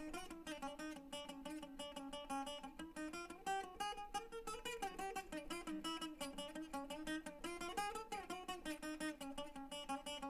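Acoustic guitar playing a raga melody: quick plucked notes, with the pitch sliding up and down between some of them.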